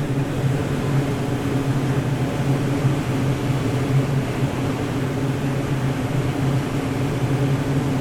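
Water rushing through a dam, a steady dense roar with a low droning hum running under it.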